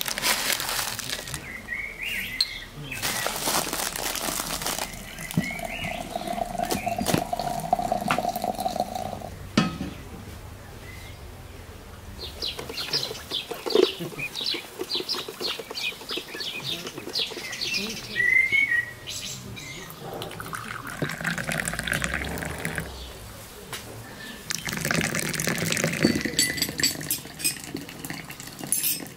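Crinkling of a plastic packet of loose black tea as tea is spooned into a porcelain teapot. This is followed by a quick run of high bird calls, about three a second, from birds in a wire-mesh pen. Near the end comes the sound of water running from a brass samovar's tap.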